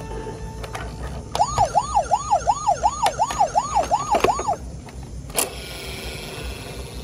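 Battery-powered toy fire truck's electronic siren, set off by a button, wailing in quick repeated sweeps, about three a second, for about three seconds. A sharp click follows about a second later.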